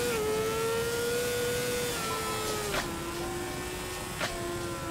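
Honda CBR600RR's inline-four engine running at high revs under throttle, heard from the bike with wind noise. The pitch creeps up slowly and steps down twice with upshifts, once right at the start and again about two and a half seconds in.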